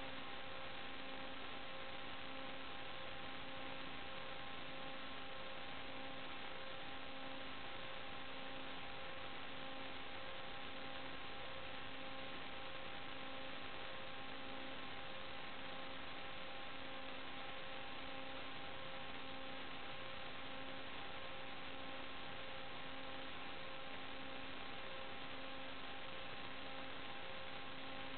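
Steady electrical hiss and hum with several faint steady tones, and a low tone pulsing on and off about once a second. This is interference noise on an analog FPV video link recording that carries no real sound.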